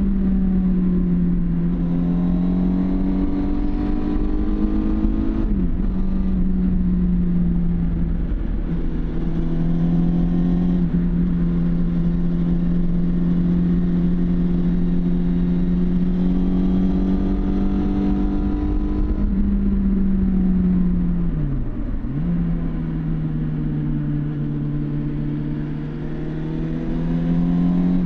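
1999 Suzuki GSX750 Inazuma's inline-four engine through the stock exhaust, running steadily under way with its pitch slowly climbing. Its note dips briefly twice, at about five seconds in and again a little past twenty seconds, like gear changes.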